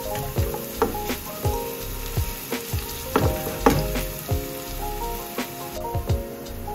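Sliced green onions sizzling in hot oil in a black steel frying pan, with scattered crackling pops, while a silicone spatula stirs them.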